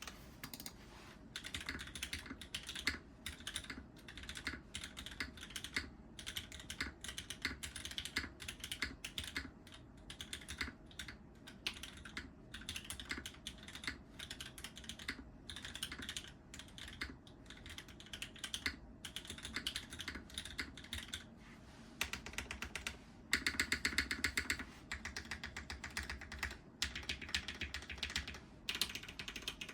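Typing on a TKD Cycle8 custom mechanical keyboard with lubed and filmed Cherry MX Black linear switches, GMK keycaps and a stainless-steel-clad case: a steady run of irregular keystroke clacks, with a faster, louder flurry about two thirds of the way through.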